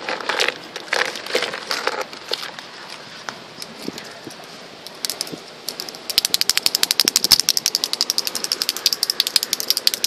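Small items rustling and clicking as the contents of a metal ammo can are handled, then a fast, even run of sharp clicks, about a dozen a second, for the last four seconds.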